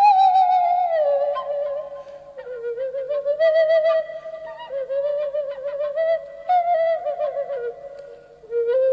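Background music: a slow solo melody on a flute-like instrument, its held notes wavering and sliding between pitches.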